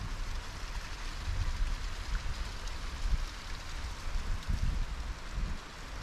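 Wind buffeting the microphone in uneven low gusts over a steady hiss, with a stronger gust a little past the middle.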